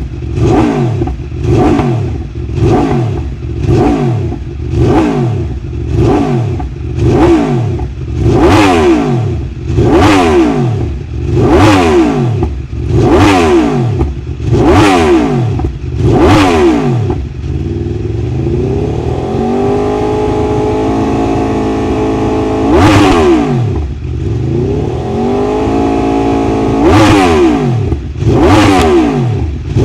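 Aprilia RSV4's V4 engine, fitted with an SC-Project CR-T slip-on exhaust, free-revving. Quick throttle blips come about once a second for the first half. Then the engine is twice held steady at raised revs, with more blips between and near the end.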